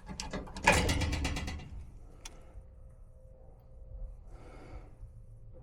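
A short rattling scrape about a second in, followed by a single sharp click, then faint scraping and handling noise.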